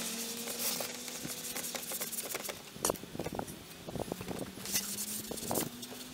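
Cloth rubbing over a cast-iron Dutch oven lid, with several sharp knocks and clinks of the iron lid and its handle as it is lifted and handled, the loudest about three seconds in.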